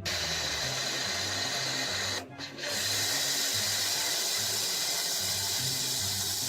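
A machine running with a steady, loud hissing whir that drops out briefly about two seconds in, over a low pulsing underneath.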